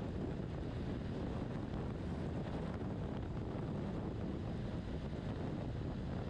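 Steady wind noise rushing over the microphone of a BMW R1200RT motorcycle under way, mostly a low rumble, with no distinct engine note standing out.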